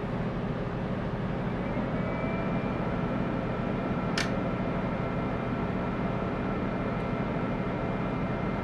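Replacement cooling fan in a Tektronix 2465 analog oscilloscope running at full speed: a steady, smooth rush of air with no grinding. A faint high whine joins about two seconds in, and there is a single light tick about four seconds in.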